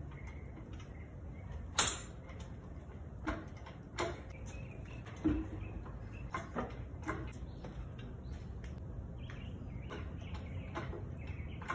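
Scattered metal clanks and knocks, the sharpest about two seconds in, as an engine hoist lifts a Subaru EJ25 engine out of the engine bay on a chain, over a steady low hum.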